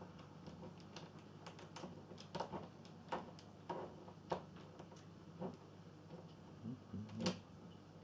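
Lock pick and tension wrench scraping and clicking in a door's cylinder lock: faint, irregular small metallic clicks as the pins are worked, the loudest about seven seconds in.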